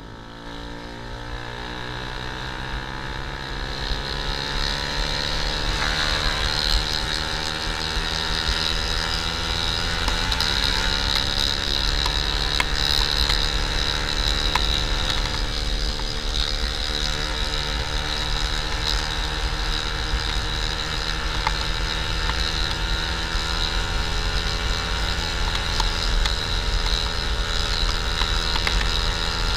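Honda CB150R's single-cylinder engine running through a WRX Trioval K2 aftermarket exhaust while being ridden. It picks up speed over the first few seconds, changes note around ten seconds in as if shifting gear, then cruises at a fairly steady pitch. The exhaust note is deep, round and bassy but not too aggressive.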